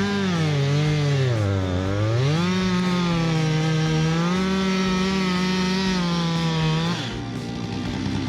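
Two-stroke chainsaw running at high revs, its pitch sagging about a second and a half in as it loads up in the cut, then climbing back. About seven seconds in it cuts off and a rougher, lower engine sound takes over.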